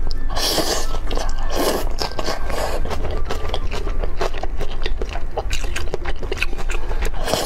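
Close-miked eating sounds: two slurps of spicy instant noodles about half a second and a second and a half in, then wet chewing clicks as a mouthful of noodles and leafy greens is chewed.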